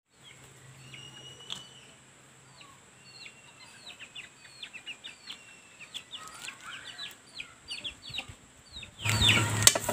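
Chicks peeping: a run of short, high, falling chirps, two or three a second, over a faint steady high-pitched whine. About a second before the end, a louder rushing noise cuts in.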